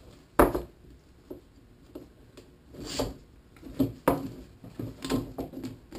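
Plastic PVC pipe and fittings knocking against a wooden workbench as they are handled, a sharp knock about half a second in and a few lighter ones later, with a brief rustle of fabric being slid onto the pipe near the middle.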